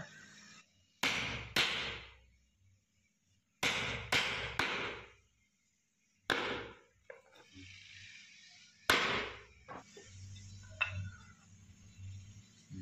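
Hand-tool work on hardwood as the edges of a wooden plane wedge are chamfered: seven sharp knocks, in two pairs, a triple and two single strikes, each dying away within half a second. A few faint clicks follow near the end.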